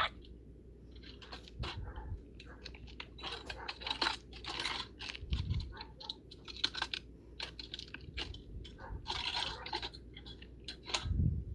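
Irregular crunching, clattering and scraping as a ceiling fan is broken apart, with three dull thumps spread through it.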